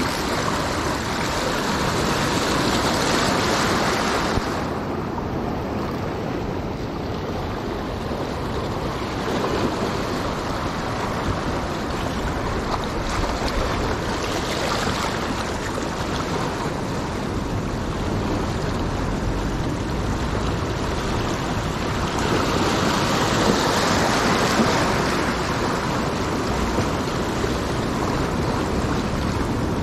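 Waves of a rough sea washing in over shoreline rocks and draining back, a continuous rushing that swells louder every several seconds as each wave breaks in.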